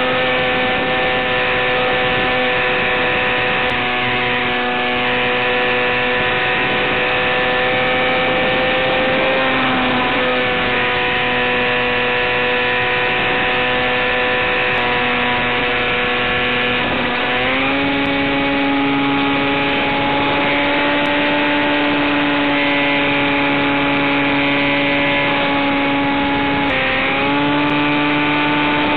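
Electric motor and propeller of an FPV RC plane, heard from on board through a hissy analog video link: a steady pitched drone that steps up in pitch twice, around 17 s and 27 s in, as the throttle is opened.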